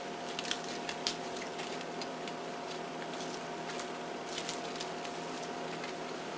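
Silicone spatula stirring tuna salad in a glass mixing bowl, with scattered light clicks of the spatula against the glass, the two sharpest about half a second and a second in, over a steady hum.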